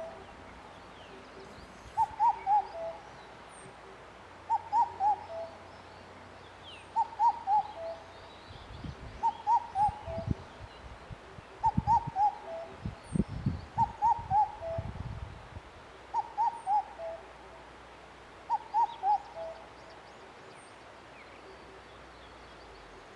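Indian cuckoo repeating its distinctive four-note call, a phrase about every two and a half seconds. Low rumbles sound in the middle.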